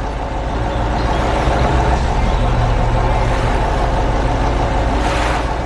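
Steady low engine rumble of a heavy excavator on the move, with a short hiss near the end.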